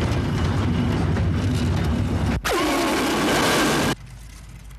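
Freight wagons rolling on the rails of a shunting yard with a low, steady rumble. About two and a half seconds in, a loud metallic screech with a falling pitch takes over for about a second and a half, then cuts off abruptly, leaving a much quieter background.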